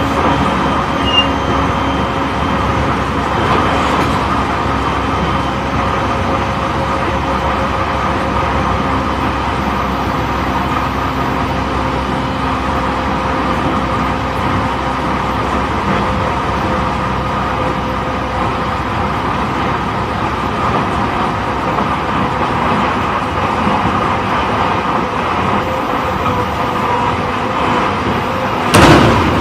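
Running sound inside a JR East E531 series electric train's motor car at line speed: steady wheel-on-rail rumble under a few steady motor tones. About a second before the end a short, loud rush.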